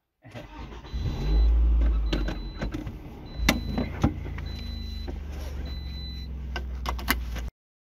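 Car engine starting with a loud low rumble, then idling with a steady hum. A high chime beeps about five times at roughly one-second intervals, and sharp clicks come as the seatbelt is pulled across and buckled. The sound cuts off abruptly near the end.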